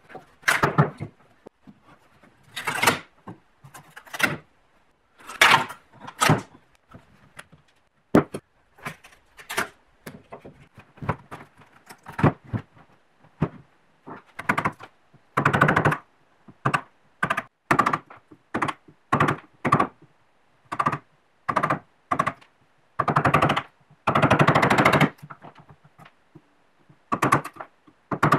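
Wood chisel prying and scraping rotten wood and loose bark off an old oak board: irregular knocks and cracks as pieces split away and drop on the wooden bench, with a few longer scraping strokes.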